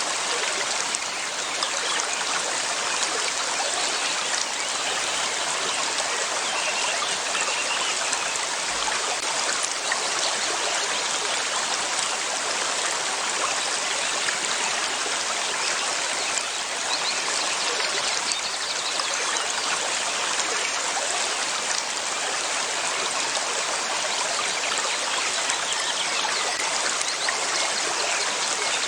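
River water flowing steadily, an even rushing and splashing without pause.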